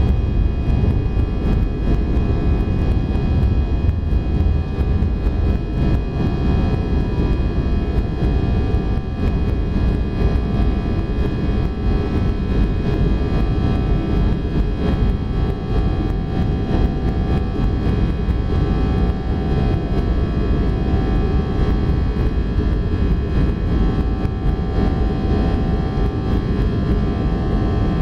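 Airbus A319 cabin noise during the climb after takeoff: a steady low rumble of engine and airflow, with a few steady whining tones over it.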